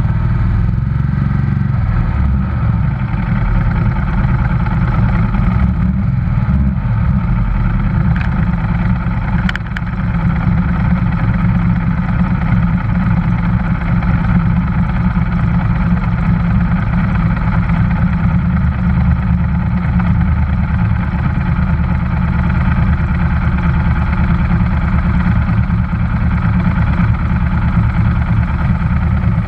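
Race motorcycle engine running steadily while the bike sits stationary, heard close up from the bike itself.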